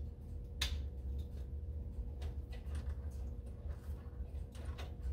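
Plastic wire-harness connector being handled and pushed together, with one sharp click a little over half a second in and a few faint taps after. A steady low hum runs underneath.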